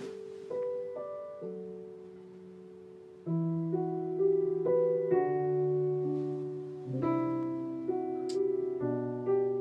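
Soft background piano music: a few single notes at first, filling out into fuller chords from about three seconds in.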